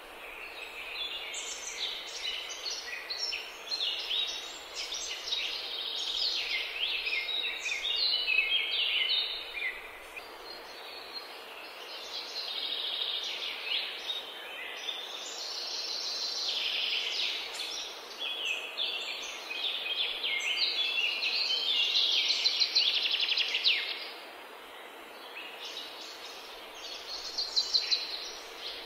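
Many small birds chirping and twittering at once in a dense, continuous chorus that swells and eases a few times, over a faint steady background hum.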